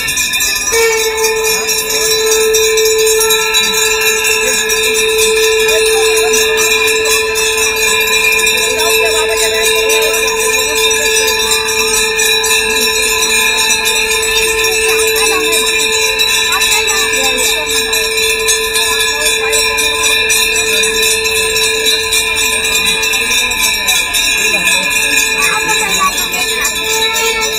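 Aarti hand bells ringing fast and without a break, a dense metallic jingling, over a steady held tone that starts about a second in and lasts almost to the end.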